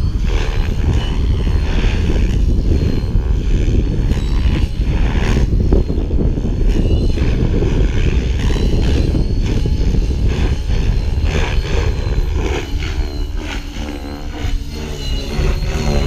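Align T-Rex 550 electric radio-controlled helicopter flying over a field, its rotor and motor sound running over a loud low rumble. Toward the end its whine bends up and down in pitch as it swoops past.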